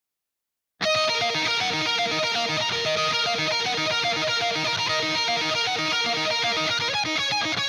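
Guitar-driven background music that starts abruptly out of silence about a second in and plays on at a steady level with a regular beat.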